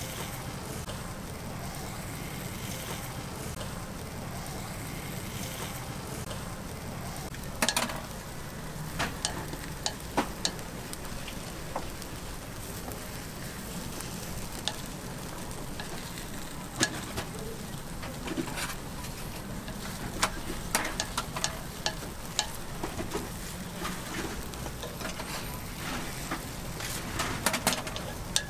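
Chrysanthemum cakes sizzling in a hot mold plate, with sharp clicks and taps of a pick against the mold as the cakes are worked loose; the clicks start about eight seconds in, are sparse at first and come thick and fast after about twenty seconds.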